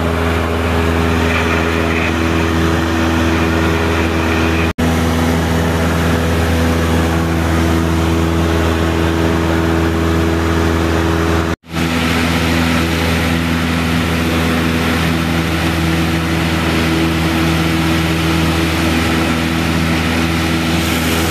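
Steady drone of a small single-engine propeller plane's piston engine and propeller in cruise flight, heard from inside the cabin. The sound cuts out for an instant twice.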